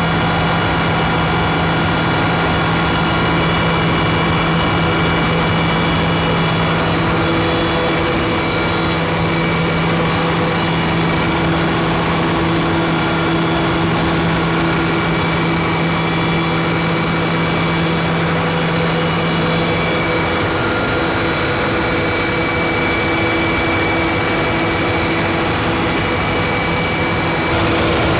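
A machine running loudly and steadily, a dense hiss with several steady whining tones; a low hum drops out about two-thirds of the way through.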